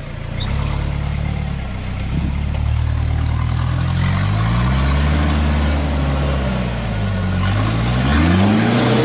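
Modified Toyota Hilux rock crawler's engine revving up and down under load as the truck climbs a rock ledge. Its pitch rises slowly about halfway through, then swings up and down sharply in quick blips near the end.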